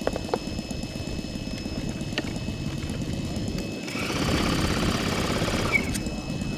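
Engine of a radio-controlled Sopwith Pup scale model airplane running in flight, as a steady buzz over a low rumble. It grows louder for about two seconds around four seconds in, and a few short clicks sound near the start.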